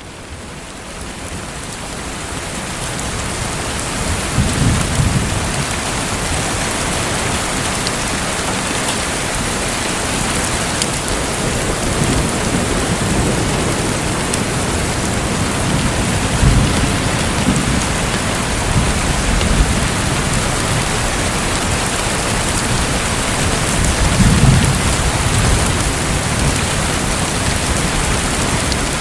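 Steady hiss of heavy rain with a few low rumbles of distant thunder, fading in over the first few seconds.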